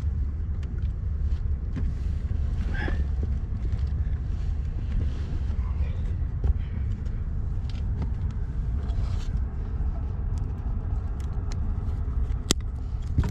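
Steady low rumble with faint scattered clicks, and near the end a single sharp click as side cutters snip a plastic zip tie.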